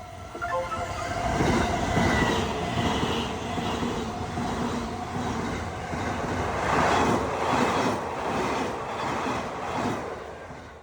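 A train passing close by, its wheels clattering over the rails. The sound builds about a second in, is loudest around two and seven seconds, and fades away near the end.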